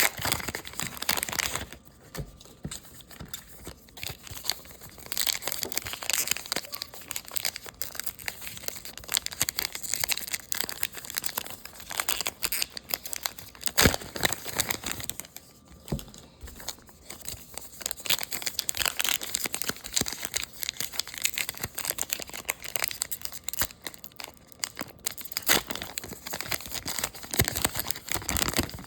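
Plastic foil wrappers of trading card packs crinkling and being torn open, with cards being handled. The rustling comes in irregular spells, and there is one sharp click about halfway through.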